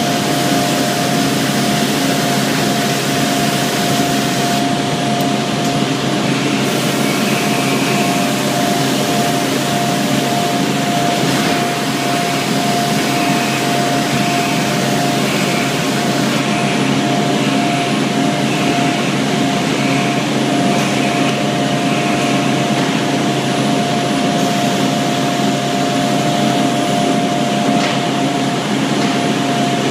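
Cotton gin machinery running steadily: a constant noise of fans and motors with a steady whine held throughout.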